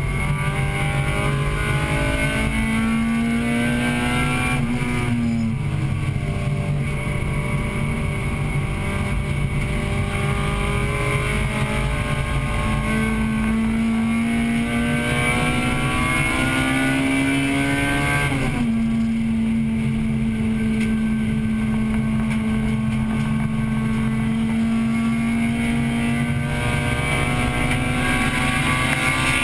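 Interior sound of a 1998 Acura Integra Type-R's 1.8-litre VTEC four-cylinder engine at race pace. It pulls up through the revs, and its note drops sharply twice, about 5 seconds in and again near 18 seconds.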